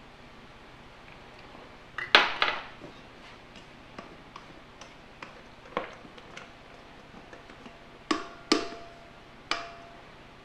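A few separate knocks and clinks from a stainless steel mixer bowl and kitchen utensils being handled while whipped cream is scraped out of the bowl. The loudest knock comes about two seconds in, and a faint ringing tone hangs on briefly near the end.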